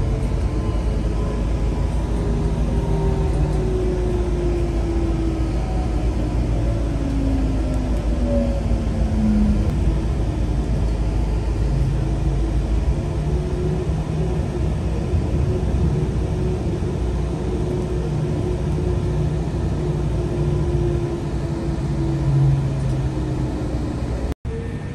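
Link light rail car in motion, heard from inside: a steady rumble of wheels on track, with electric motor whine tones that slide down in pitch over the first ten seconds and then hold steadier.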